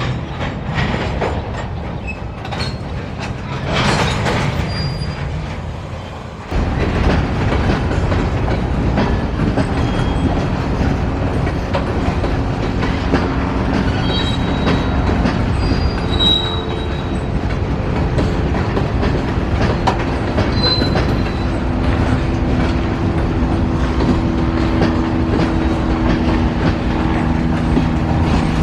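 Freight train cars rolling along the track, clicking over rail joints, with short high wheel squeals. About four seconds in there is a brief sharp noise; about six and a half seconds in the sound jumps abruptly louder and closer.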